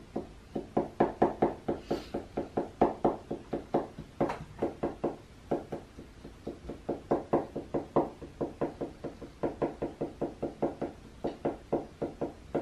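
Marker tip tapping dots onto paper on a wooden tabletop: quick runs of light taps, about five a second, with short pauses between runs.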